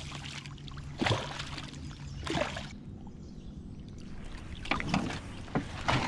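A hooked freshwater drum thrashing and splashing at the surface beside an aluminium canoe as it is landed: a series of short, sharp splashes and knocks spread over several seconds.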